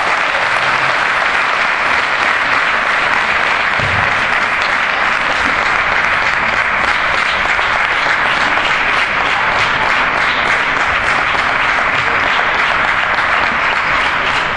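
Crowd applauding steadily, a dense wash of many hands clapping.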